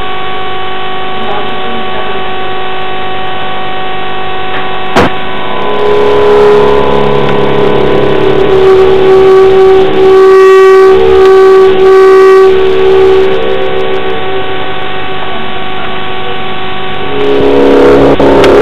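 Suspense soundtrack of sustained synthesizer drone tones. A single click comes about five seconds in, and a louder held tone swells in soon after, strongest between about ten and twelve seconds.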